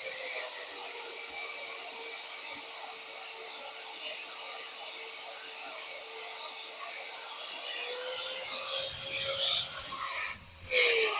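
Electric drill running a hole saw through the metal pole with a steady high whine, its pitch sagging a little under load and climbing again. Near the end the drill stops and the motor spins down with a falling whine.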